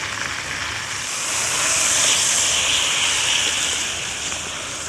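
Thin minute steaks sizzling in hot oil in a frying pan on a gas camping stove. The hiss swells louder about a second in and eases off again near the end.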